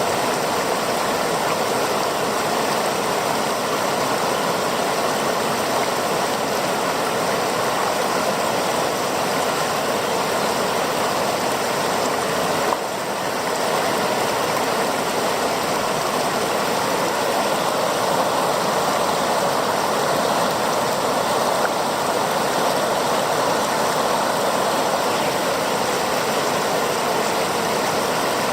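A mountain river rushing steadily, heard through the built-in microphone of an Olympus OM-D E-M10 Mark II camera, whose recording carries the camera's hiss. The sound briefly dips once about halfway through.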